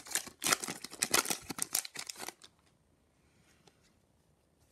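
Foil wrapper of a Fleer Ultra hockey card pack crinkling and rustling as it is torn open and the cards are pulled out. The rapid crackling lasts about two and a half seconds and then stops.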